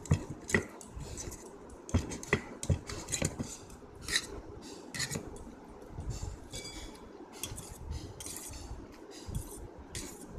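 Metal fork clinking and scraping against a steel plate while scooping up noodles, with several sharp clinks in the first four seconds and softer scrapes after.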